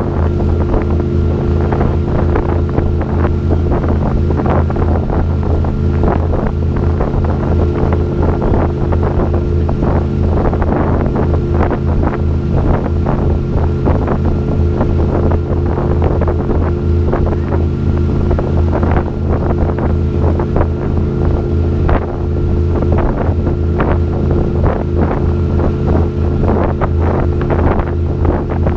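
Tour boat's engine droning at a steady speed while under way, with water rushing in the wake and wind buffeting the microphone.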